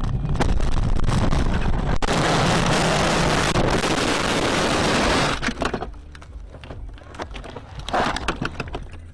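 A car crash heard from inside the car. Road and engine noise, then about two seconds in a sudden loud crash that runs on as a harsh, noisy roar for about three seconds. It drops off sharply into scattered knocks and rattles, with a louder knock near the end.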